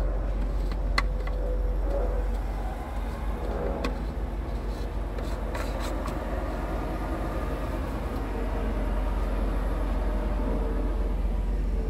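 Scania R tractor unit's diesel engine idling with a steady low rumble. A few sharp plastic clicks about one, four and six seconds in come from the coolant expansion tank cap being handled.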